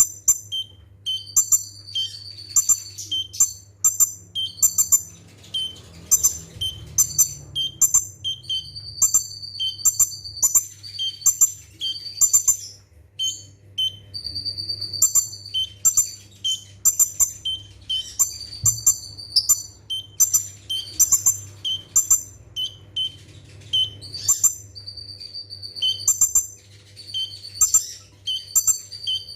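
Kolibri ninja (konin), a small sunbird, singing rapid-fire 'nembak' bursts: quick strings of thin, high-pitched notes and trills repeated every second or so, over a low steady hum.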